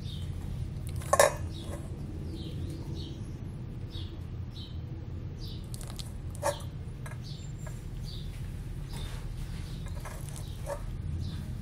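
Mexican beaded lizard feeding from a stainless steel bowl: its jaws and the prey knock against the metal, with a sharp clink about a second in and a smaller one about six and a half seconds in, and soft wet mouth noises between, over a steady low hum.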